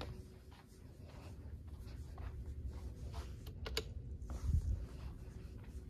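Scattered key presses on a desktop computer keyboard, a few separate clicks rather than steady typing, with a low thump about four and a half seconds in.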